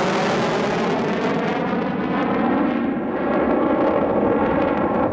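McDonnell Douglas F-4 Phantom II's twin J79 turbojets, loud jet noise from the fighter as it banks past at low altitude, with a wavering, phasing quality. The high hiss thins out about two seconds in as the jet turns away, leaving a heavy steady rumble.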